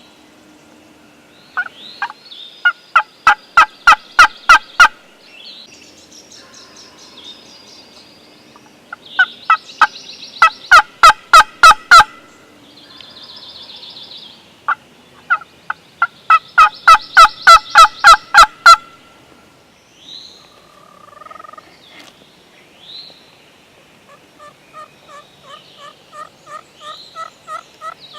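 Wild turkey yelping: three loud runs of about eight to ten sharp, evenly spaced yelps, roughly four a second, with fainter songbird calls between them.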